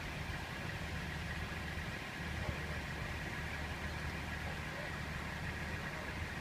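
Steady low rumble of an idling engine, even throughout with no clear changes.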